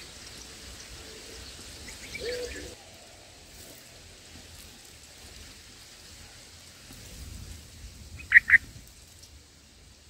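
Two short, sharp bird calls in quick succession near the end, over a faint, steady outdoor background.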